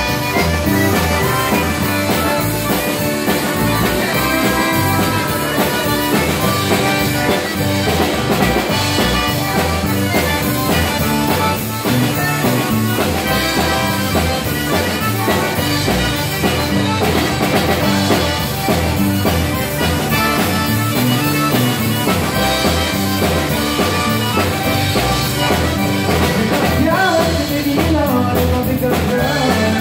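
Cajun band playing live: a diatonic button accordion over acoustic guitar, pedal steel guitar, electric bass and drum kit, in a steady, continuous groove.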